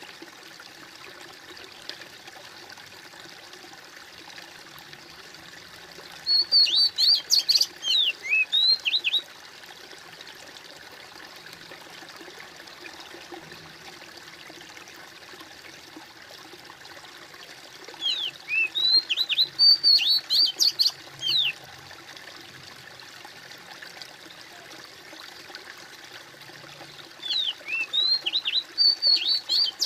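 Steady trickling and splashing of a small stream. A songbird sings three times over it, each song a quick run of high, falling notes lasting about three seconds; the songs are the loudest sound.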